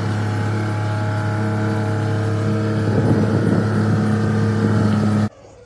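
Engine of a 65-foot boom lift (man lift) running steadily after start-up, with a rougher patch about three seconds in; the sound cuts off suddenly near the end.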